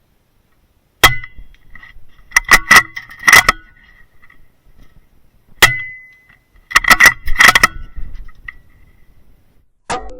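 Two sharp reports, about a second in and near the middle, from a .22LR rifle firing subsonic rounds. Each is followed within a second or two by a quick run of sharp metallic clicks and clanks.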